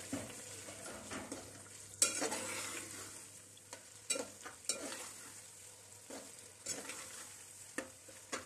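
Boneless chicken cubes frying in oil-rich tomato masala in a metal pot, sizzling softly while a long metal spoon stirs them, with several short scrapes and knocks of the spoon against the pot.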